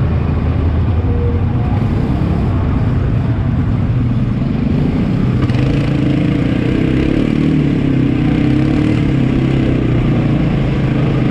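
ATV (quad bike) engine running under way with a steady drone. About halfway through its pitch rises and it gets slightly louder as it speeds up.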